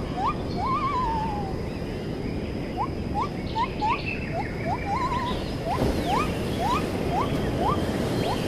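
A bird calling over and over in short rising whistles, a couple a second, now and then breaking into a wavering trill, over a steady low rush of wind or surf.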